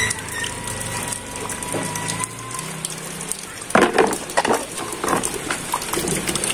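Rain falling steadily on wet ground, with a quick run of knocks and clatters a little past halfway as rubber animal toys are handled and dropped into a plastic crate.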